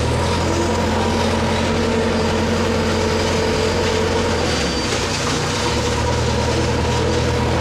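Diesel engine of a JCB backhoe loader running steadily, heard from inside its cab as the machine is driven; the engine note shifts slightly about halfway through.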